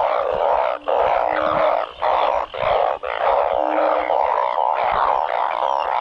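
A dense chorus of many frogs calling together, a loud unbroken din, with short low single calls standing out every second or so. It is the breeding chorus that heavy rain sets off.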